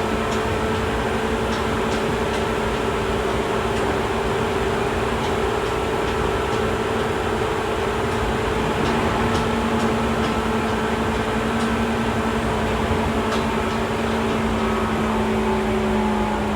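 Inside a Seibu 2000 series field-chopper electric train car: a steady electrical hum over the constant rumble of the running train, with a few faint clicks.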